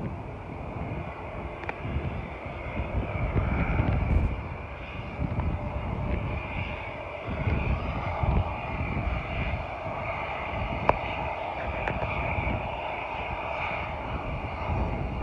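Airliner's engines running with a steady drone and a high whine, while wind buffets the microphone.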